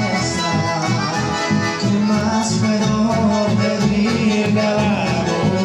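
A chamamé band playing, the piano accordion leading over guitar and a steady, rhythmic bass line.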